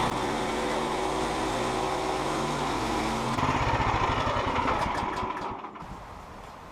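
Portable band sawmill's small gasoline engine running steadily. Its note changes a little past halfway, then it dies away near the end.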